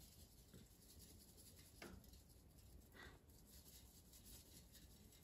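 Near silence, with a faint dry rustle and two soft ticks, about two and three seconds in, from ground black pepper being shaken out of a shaker bottle.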